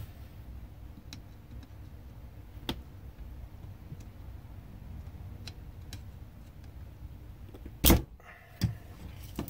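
Scattered light clicks and knocks of tools on an old power drill's plastic housing as steel pins are worked out to separate its parts. A sharper knock comes about eight seconds in, with a smaller one just after it.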